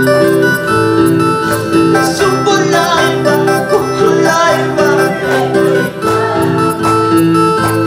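Christian worship song played on an electronic keyboard, its notes stepping in a steady, even pattern, with a man singing in Quechua over it in a couple of stretches.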